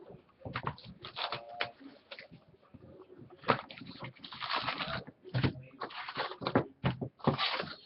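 Trading card packs being torn open and cards handled: crinkling foil wrappers and cards sliding and flicking, in irregular bursts.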